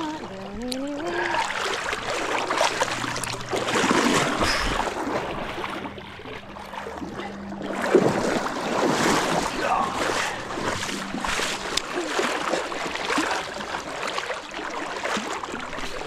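Fast creek current rushing and splashing around a person wading through it, with uneven sloshing surges and a sharper splash about halfway through.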